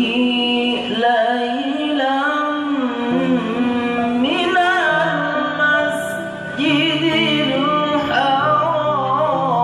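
A qari chanting Quranic verses in the melodic tilawah style, one voice holding long notes and winding them through ornamented runs, with a short break about six seconds in. Earlier notes keep ringing under the new ones, as from a PA system's echo.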